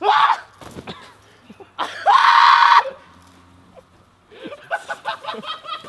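A short yell right at the start, then a long, loud scream about two seconds in, followed near the end by people laughing.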